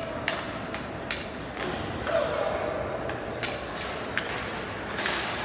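Ice hockey play in a rink: a handful of sharp clacks of sticks and puck at uneven intervals over a steady hiss of skates on the ice, with spectators' voices in the hall.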